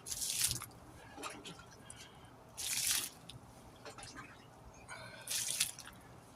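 Water being scooped out of the inside of a tire with a small plastic gum container and tipped out, splashing three times about two and a half seconds apart, with small plastic clicks and drips between.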